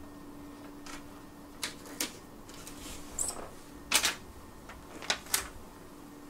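Hands loading label stock on a desktop label press: a few sharp clicks and knocks of the roll, core and machine parts being handled, with a short scrape near three seconds and the loudest knock about four seconds in.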